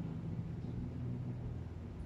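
Steady low background hum, with no distinct bites or chewing standing out.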